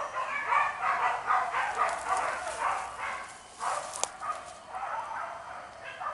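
Hunting dogs barking and yelping in quick, repeated calls, with a single sharp click about four seconds in.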